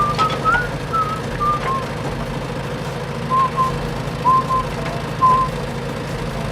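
A steady low hum throughout, with a string of short whistled chirps at irregular intervals, some rising and some falling in pitch.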